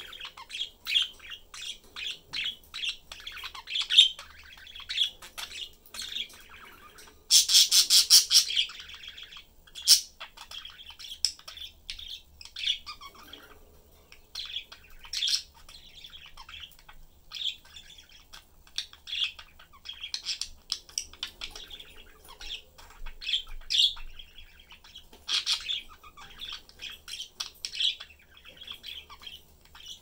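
Pet budgerigars chattering in their cage, with a steady stream of quick short chirps and warbles. About seven seconds in comes one louder call that lasts over a second.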